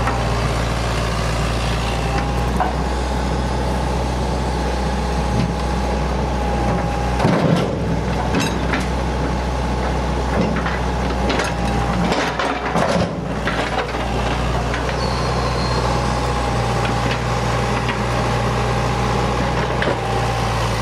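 Hitachi EX100 excavator's diesel engine running steadily under load, with a steady hydraulic whine that breaks off twice as the grab works. A few sharp knocks, about seven seconds in and again around twelve seconds, as rocks are handled over the steel dump trailer.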